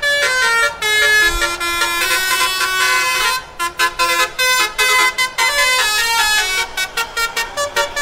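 Telolet horn on a tour bus, a multi-trumpet air horn, playing a quick tune of short, changing notes with a few brief breaks.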